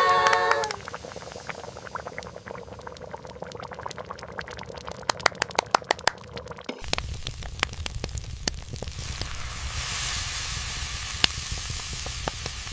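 Campfire crackling with irregular sharp pops, and sausages sizzling over it. A pitched tone fades out in the first second, and about seven seconds in a steady low rumbling noise joins the crackle.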